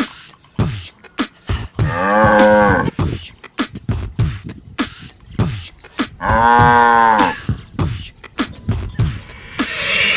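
Two long cow moos, the first about two seconds in and the second about six seconds in, each rising and falling in pitch, over a scattering of short, sharp clicks.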